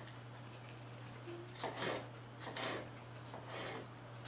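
Chef's knife cutting a red pepper on a wooden cutting board: a few separate slicing strokes, irregularly about a second apart, over a low steady hum.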